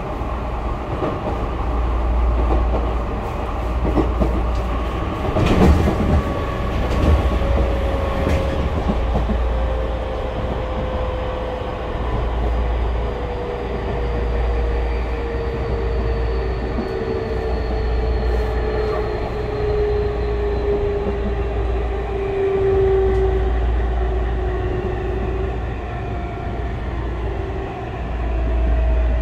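Tokyu 5000 series electric train heard from inside the car. The traction motors' whine glides steadily down in pitch as the train slows, over a constant low rumble of wheels on rail. A few sharp rail-joint clacks come about six to eight seconds in.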